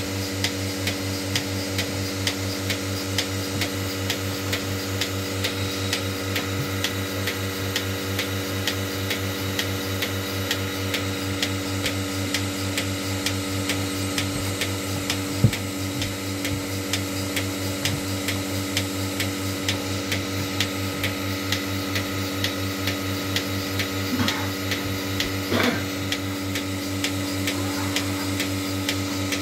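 Portable bucket milking machine running: a steady vacuum-pump hum with the pulsator clicking in a regular rhythm as it milks a cow. A single sharper knock about halfway through.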